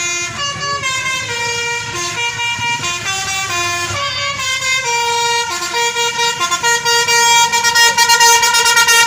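Basuri telolet horn on a bus playing a multi-note melody, the pitch stepping to a new note every half second or so. It grows louder toward the end, where the notes pulse rapidly.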